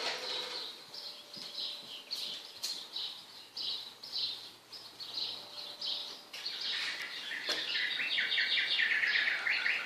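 Wild birds singing: short chirps repeated about twice a second, joined in the last few seconds by a faster, lower trill.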